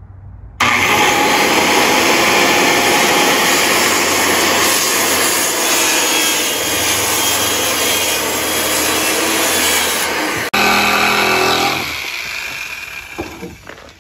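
Corded circular saw starting up about half a second in and cutting through a sheet of plywood, running loud and steady. It cuts out for an instant about ten and a half seconds in, then runs on and winds down near the end.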